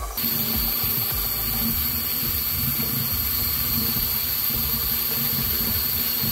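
Air-driven (pneumatic) agitator on a stainless steel mixing tank running at full speed, about 560 rpm. The air motor gives a steady, loud hiss with a constant hum underneath.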